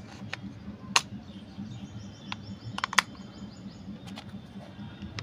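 AA batteries clicking into the spring contacts of a plastic toy remote control's battery compartment: a handful of sharp clicks and snaps, the loudest about a second in and again near three seconds.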